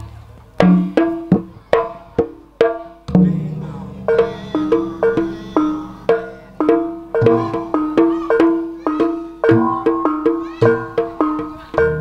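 Gamelan playing jaranan music: struck bronze notes alternating between two main pitches in a repeating pattern, each ringing briefly, punctuated by sharp drum strokes. A low booming tone swells in about three seconds in, and the pattern quickens after about four seconds.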